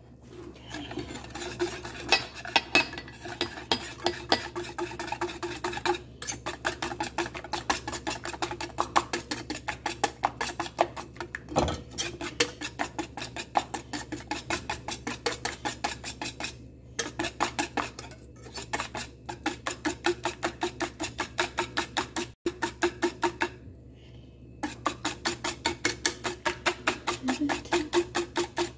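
Wire whisk beating a thin mixture in a stainless steel bowl, its wires clicking and scraping against the metal in a fast, even rhythm of several strokes a second. The whisking stops briefly a few times and starts again.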